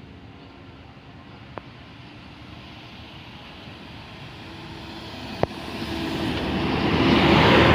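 A coach bus drives up and passes close, its engine and tyre noise swelling to a peak near the end. Two sharp clicks come before it, one early and one about a second before the noise climbs.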